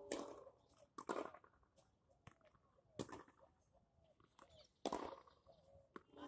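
Tennis ball being hit against a practice wall: several sharp hits of racket and ball on the wall, about every two seconds, including a quick double hit about a second in.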